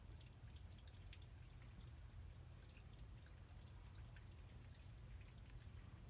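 Faint trickling and dripping of water from a watering can, set up as a bird shower, into the dish below: scattered light drips over a low steady rumble.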